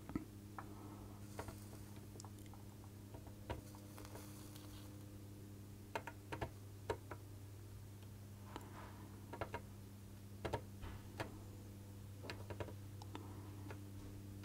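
Scattered faint clicks and ticks of a soldering iron tip and solder wire working along the pins of a surface-mount chip, dragging out solder bridges, over a steady low hum.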